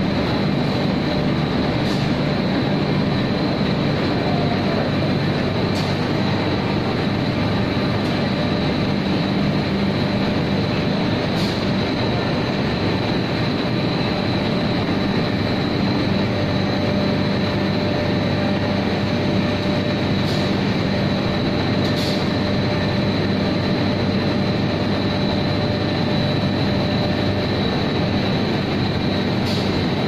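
Cold pad batching dyeing range running steadily: a continuous machine hum with a constant high whine over it and a few faint clicks now and then.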